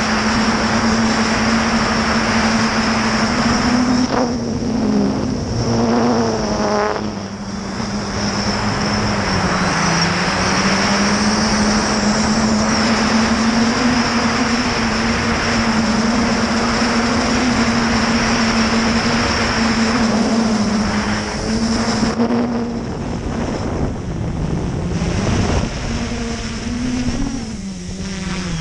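Traxxas Aton quadcopter's motors and propellers buzzing steadily in flight, with a high whine over a rush of wind and prop wash, recorded by the camera on the drone. The pitch wavers and glides with the throttle, dipping several times near the end.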